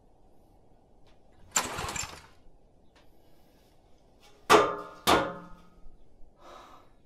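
A portable generator being pull-started by hand: one rasping pull on the recoil cord, then two harder pulls about half a second apart, each turning the engine over briefly before it dies away without catching.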